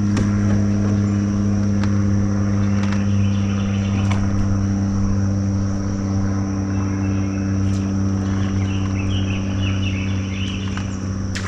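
Electric trolling motor on a jon boat humming steadily, switched on suddenly at the start. A steady high insect buzz runs over it, with a few bird chirps about two-thirds of the way through.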